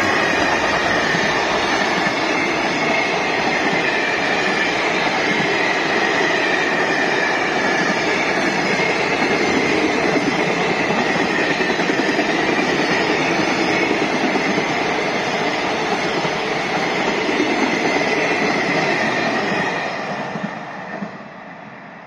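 Container freight train hauled by an EF210 electric locomotive rolling past: a steady loud rumble and rattle of wagon wheels on the rails, with high whining tones that slowly fall in pitch over the first half. The sound fades away near the end as the last wagons pass.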